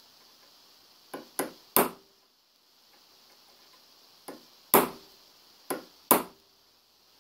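A hammer striking a steel punch set against a Colt Single Action Army revolver hammer: seven gentle metallic taps with a short ring, three about a second in and four more a few seconds later. They are an attempt to drive the old hammer cam part through, and it does not move.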